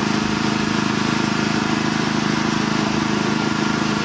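Boat engine running steadily, an even hum that holds one pitch.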